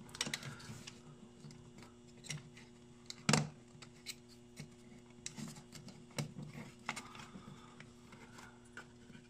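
Scattered small clicks, taps and scrapes of a fence charger's plastic housing and circuit board being handled and pressed together by hand, with one sharper knock about three seconds in, over a faint steady hum.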